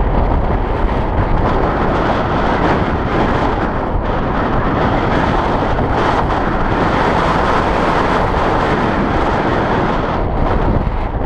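Steady loud rush of wind buffeting the microphone of a camera on a moving bicycle, with a brief dip near the end.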